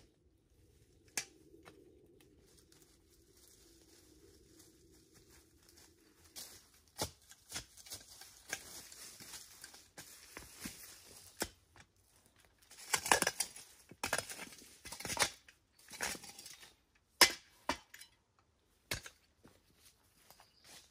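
Digging by hand in soil and leaf litter: scraping, rustling and tearing noises that start about a third of the way in and grow busier, with a couple of sharp knocks near the end.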